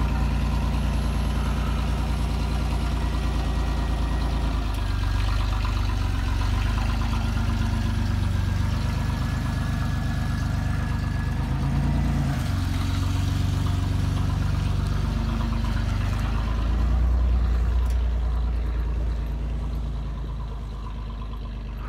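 1990 Oldsmobile Cutlass Supreme's 3.1-litre V6 running cold through a single Thrush turbo muffler. The exhaust note shifts a few times as the car pulls away and drives off across the grass, growing fainter near the end.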